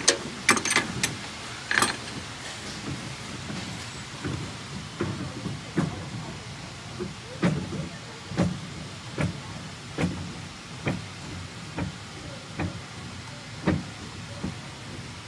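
Heidelberg MOVP sheetfed offset press turning over slowly for cylinder inspection: a steady machine hum with a sharp clunk repeating evenly a little under once a second, after a few scattered clicks at the start.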